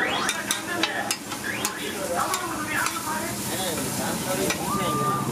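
A metal spatula scraping and clattering on a large flat iron tawa, with many sharp clicks, while egg bhurji and fish pieces sizzle in the oil on the griddle.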